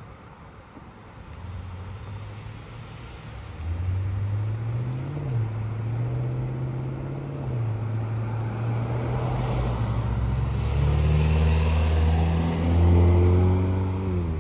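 Cars driving slowly past over speed humps, engines running at low revs with a low hum whose pitch rises and dips a few times as they ease over and pull away from the humps. It grows louder from about four seconds in and is loudest near the end.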